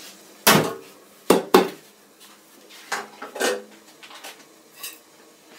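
Cookware clattering as steamed couscous is moved from the cooking pot into a metal basin: a loud clank about half a second in, two sharp knocks close together around a second and a half, then a few softer knocks.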